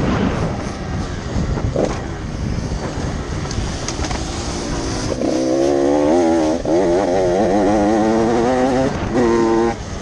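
Motocross dirt bike engine recorded on board. It sounds rough and off the throttle for the first few seconds, then pulls hard on the throttle from about five seconds in with a rising, wavering note. The sound dips briefly near the end, as at a gear change.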